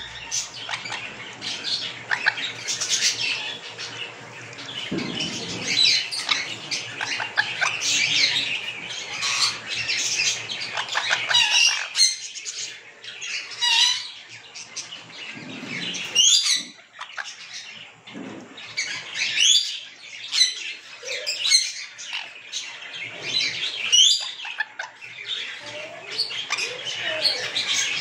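Sun conures calling in a rapid string of short chirps and squawks, with a sparser stretch midway.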